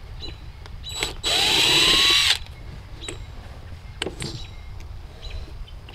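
Cordless DeWalt impact driver running for about a second, its motor whine rising as it backs out the screw that holds the hose bib to the siding, followed by a few light knocks.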